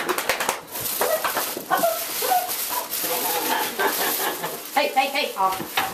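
Tissue paper and a paper gift bag rustling and crinkling as a gift is pulled out by hand.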